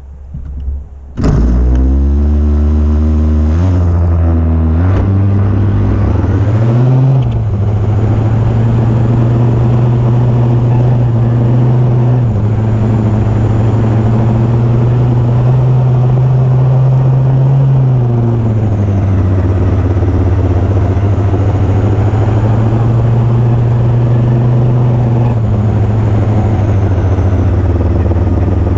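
Small two-stroke string-trimmer engine in a converted RC truck, running at high revs. It comes in loudly about a second in and revs up over the next few seconds, then holds a high, steady note. Its pitch drops briefly a little past halfway and rises again.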